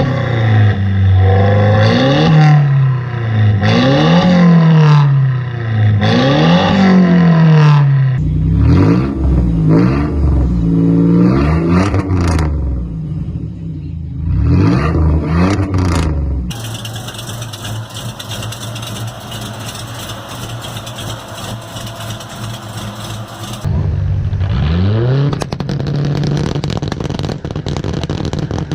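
Car engines revving through loud exhausts, one clip after another: first about four quick rev blips, each rising and falling, then more revving with a few sharp cracks, a steadier running stretch, and a final engine that revs up once and settles.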